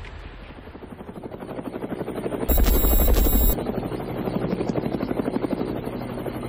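Helicopter rotor sound effect closing a K-pop track: a rapid, even chopping that grows louder. About two and a half seconds in, a one-second burst of deep bass with a high steady tone joins it, and the chopping then carries on steadily.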